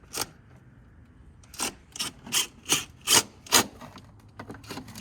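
Screws being turned into the plastic of a Power Wheels toy Jeep, a short rasping stroke with each turn. There are about six in a row, roughly two and a half a second, then a few lighter ones near the end.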